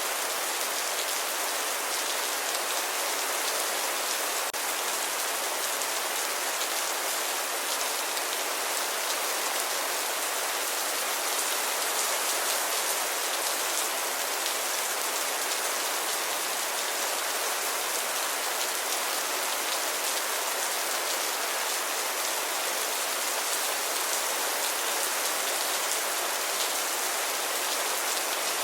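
Steady rainfall, an even hiss of raindrops falling on a surface without letup.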